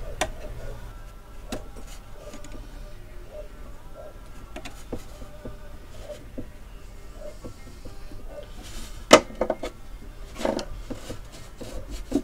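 Hand tools clicking, knocking and scraping against the metal fittings of an old radio's dial gear mechanism as stubborn parts are worked loose, with one sharp metallic click about nine seconds in.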